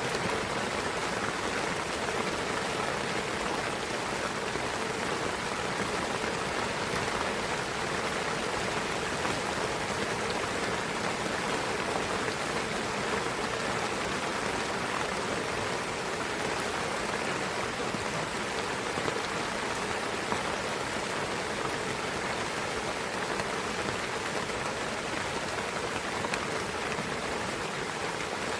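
Steady rain falling in a pine forest, an even patter of raindrops with scattered individual drops.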